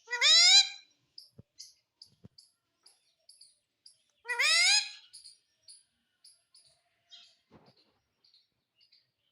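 Pet parrot giving two loud rising calls, one right at the start and one about four seconds later. Faint, rapid high chirps go on between them.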